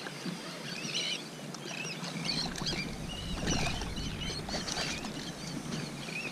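Birds calling in short, wavering high-pitched chirps, repeated again and again over the water, with a low rumble setting in about two seconds in.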